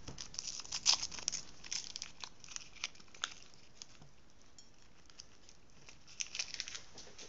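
Light crinkling and crackling as a cube of fresh yeast is handled and crumbled by hand over the egg in a bowl of flour. It comes in two spells with a quieter gap in the middle.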